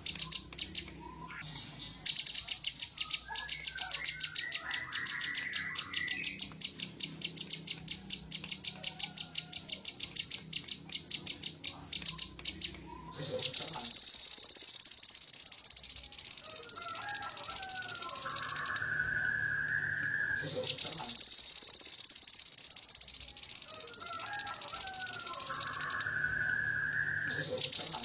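A kinoi insect calls with a fast pulsed high trill, which turns about halfway through into a steady high buzz in long stretches with short pauses. Under it a cucak jenggot (grey-cheeked bulbul) whistles short song phrases, played as a bird-song tutor recording.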